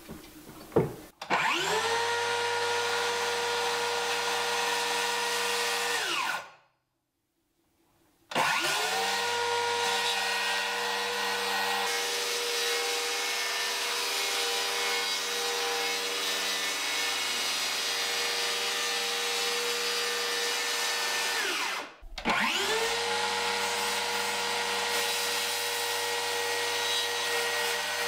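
DeWalt FlexVolt cordless circular saw cutting through a wooden plank countertop. The motor whines up to speed, holds a steady pitch through the cut, and winds down, three times over, stopping briefly twice.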